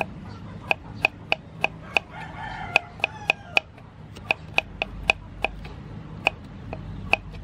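Kitchen knife chopping carrot on a wooden cutting board: sharp, irregular knocks of the blade on the wood, about two or three a second. A drawn-out call sounds in the background from about two to three and a half seconds in.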